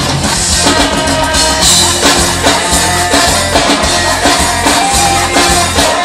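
Live reggae band playing an instrumental passage: drum kit, guitar and keyboards over a steady bass beat.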